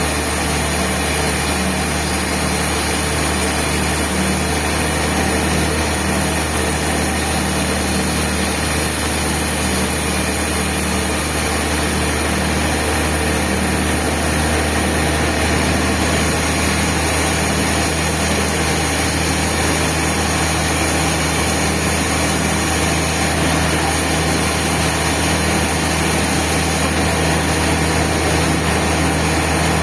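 Band saw mill running steadily at an even pitch, its motor and blade making a constant machine hum.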